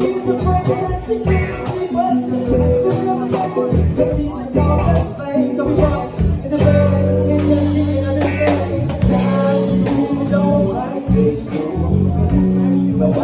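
A band playing live, with a singing voice over guitar and low bass notes; a long low note is held from about six and a half seconds in to about nine.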